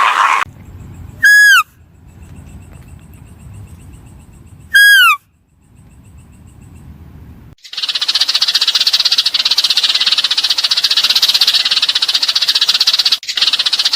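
Two short, loud animal calls about three and a half seconds apart, each rising slightly and then falling in pitch. Then, from about halfway through, a steady, shrill, high-pitched buzzing chorus with a fast pulse.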